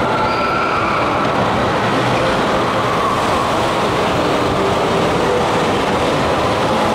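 Log flume ride in motion: a steady, loud rushing noise as the log boat travels along the water trough.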